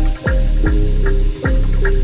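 Background music: an electronic track with a steady beat of deep bass kicks, about two a second, under a simple repeating melody.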